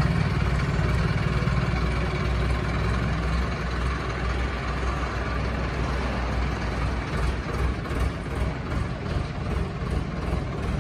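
Tractor diesel engine running as the tractor drives off; the low engine note weakens about seven seconds in as it moves away.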